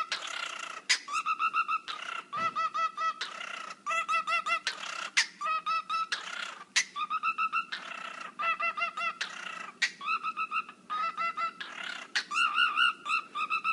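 Cockatiel whistling in quick runs of short, evenly repeated notes: about ten runs, each under a second long, with brief pauses between them.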